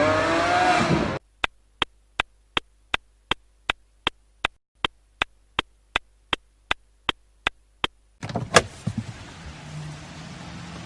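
Car sound effects: a car engine running with rising and falling pitch cuts off about a second in. A car's turn-signal indicator then ticks about eighteen times, nearly three ticks a second. Near the end comes a door clunk, then a low steady hum.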